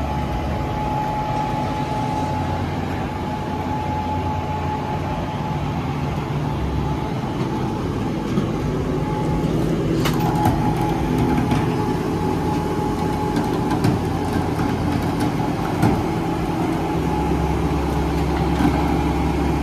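Flatbed tow truck's engine running with its bed winch engaged, drawing a van up the tilted bed. A steady whine briefly drops in pitch about halfway through, with a few clanks after it.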